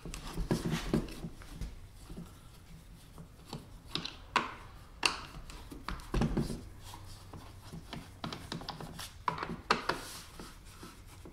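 A screwdriver backing screws out of a plastic pet dryer housing and hands handling the plastic shell: scattered small clicks, knocks and rubbing scrapes.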